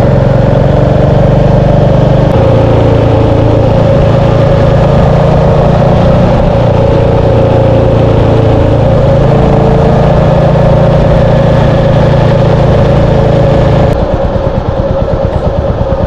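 Royal Enfield Meteor 350's single-cylinder engine running steadily under way, heard from the rider's position. The low engine note fades near the end.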